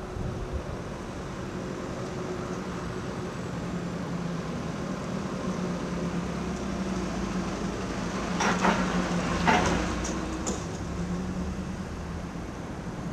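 Steady low mechanical hum of a running machine, with a constant low tone. A short cluster of sharp clicks and rustles comes about eight to ten seconds in.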